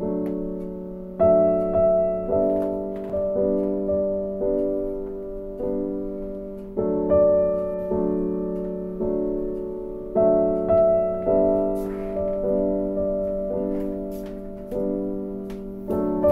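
Background piano music: a slow piece of struck notes and chords, each ringing and fading before the next is played.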